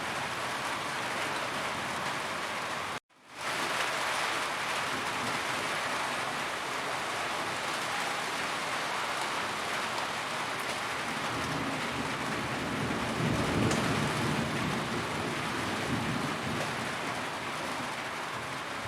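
Steady rain falling on a roof, with a low rumble of distant thunder partway through. The sound cuts out completely for a moment about three seconds in.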